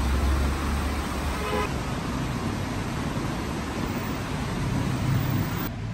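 Steady street traffic noise with a low rumble, and a short vehicle horn toot about one and a half seconds in.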